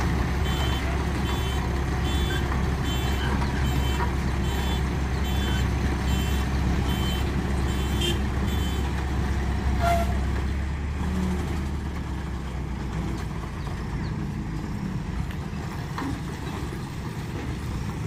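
Diesel engines of a JCB 3DX Super backhoe loader and a road roller running under load as they move slowly uphill, the backhoe helping the roller. A reversing alarm beeps about twice a second and stops around nine seconds in; after that the engine noise drops and grows fainter.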